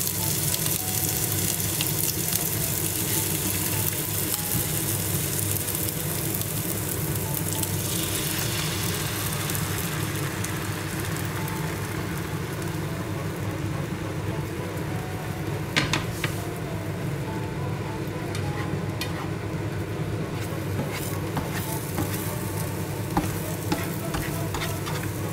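Beaten eggs sizzling as they are poured into a hot non-stick frying pan of fried ham cubes and mushrooms, with a slotted spatula scraping and tapping the pan. The sizzle is brightest for the first several seconds, then settles thinner, with scattered light ticks from the spatula.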